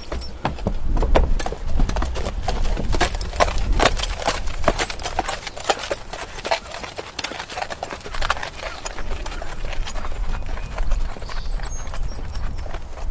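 Horse hooves clip-clopping at a walk: a steady run of sharp, uneven hoof strikes, thickest in the first half, over a low rumble.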